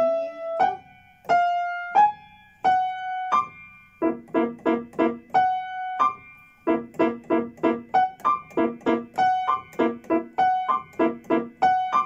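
Grand piano played slowly and haltingly at a first sight-reading: single melody notes about every two-thirds of a second, then from about four seconds in, quick groups of short repeated notes broken by held higher notes.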